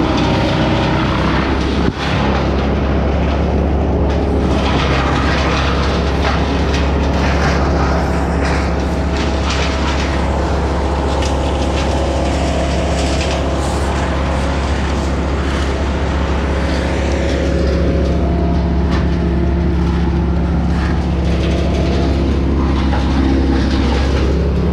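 Engine-driven tree-work machinery running steadily and loudly, with a brief knock about two seconds in.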